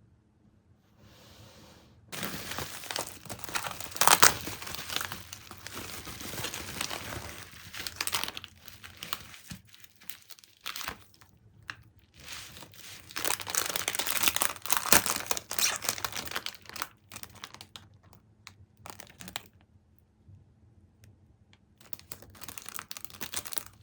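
Crinkly wrapping material being handled and crumpled in irregular bursts of rustling, with a lull before it picks up again near the end.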